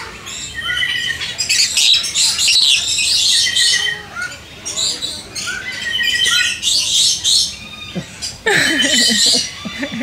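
Parrots in an aviary calling in repeated bursts of short, high chirps and squawks, with a lower falling sound near the end.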